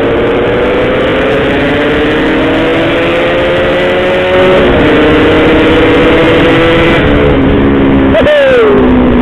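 Yamaha RX-King's 135 cc two-stroke single-cylinder engine pulling hard under way, its pitch climbing steadily, dropping once at a gear change about halfway, then holding high and getting a little louder. Near the end the pitch falls sharply as the throttle briefly closes.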